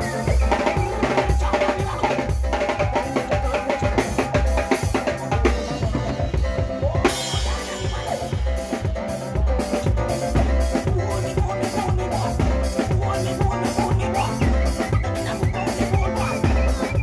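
Live band music with a close drum kit: a steady kick-drum and bass beat, with snare hits and regular cymbal strokes. About six seconds in the cymbals stop for a moment, and a rising sweep brings the beat back in.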